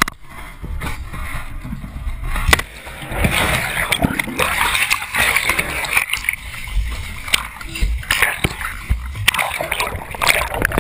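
Lake water churning and splashing around a GoPro camera in its waterproof case as it plunges into the water, with several knocks against the case.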